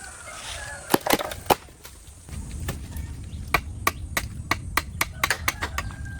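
A run of sharp knocks, tool strikes on bamboo during the house framing, coming about two or three a second from about halfway in, with a chicken clucking and calling.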